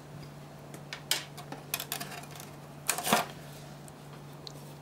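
Clicks and scrapes of a printed circuit card being handled and slid out of its edge-connector slot in a metal card cage. The loudest is a cluster of clicks about three seconds in, over a steady low hum.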